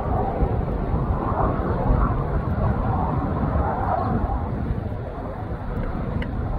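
Military fighter jet's engines on landing approach, heard from the ground as a steady rumble with no distinct tones.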